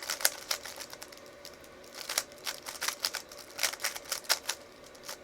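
3x3 Rubik's Cube being turned quickly by hand, its plastic layers clicking and clacking in irregular runs of several turns a second.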